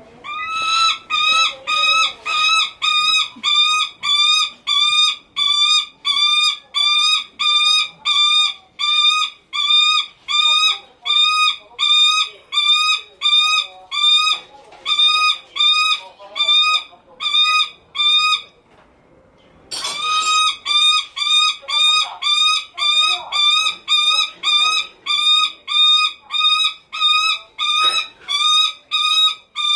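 Lanner falcon calling over and over to get attention: a loud, harsh, pitched note repeated about twice a second. It breaks off for about a second two-thirds of the way through, then starts up again.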